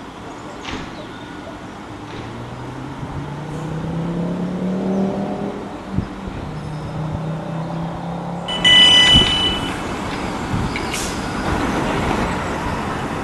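EMR Class 360 Desiro electric multiple unit pulling along the platform, its traction motors whining up in pitch as it accelerates, then settling to a steady hum. A loud high-pitched horn blast sounds for about a second some nine seconds in.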